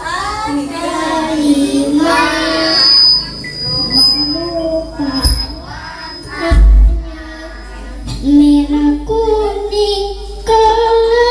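A young girl singing into a handheld microphone, holding long notes, with two short low thumps a little past halfway.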